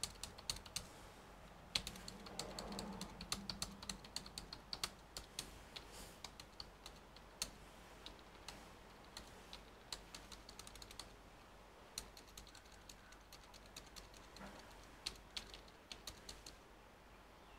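Keystrokes on a full-size Lenovo desktop keyboard: faint, irregular key presses, quicker in the first few seconds, then single presses with pauses between them.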